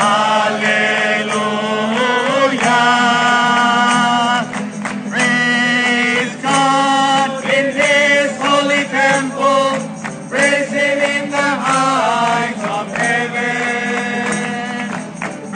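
A group of men and women singing a religious song together, accompanied by a strummed acoustic guitar, with hands clapping along.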